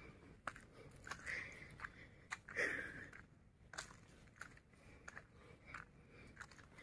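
Footsteps crunching on dry fallen leaves and twigs on a dirt trail, a faint, irregular crackle with a louder rustle about two and a half seconds in.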